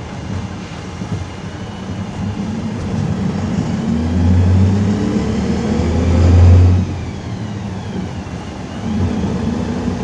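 PAZ-320405-04 Vector Next bus engine heard from inside the cabin, pulling harder with rising pitch and loudness to a peak about six and a half seconds in, then falling away suddenly as the throttle is lifted for a gear change. Steady tyre and road noise from the wet tarmac runs underneath.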